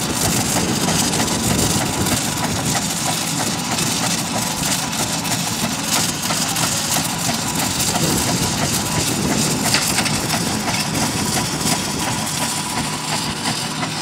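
Steam ploughing engine running steadily, a dense continuous mechanical noise.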